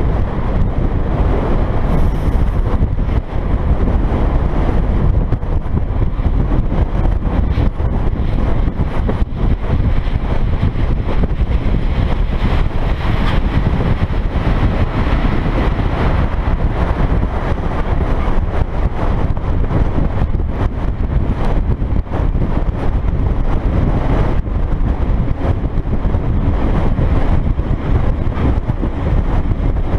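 A dump truck driving steadily at road speed, heard from a camera mounted above its cab: wind buffeting the microphone over the truck's engine and tyre noise.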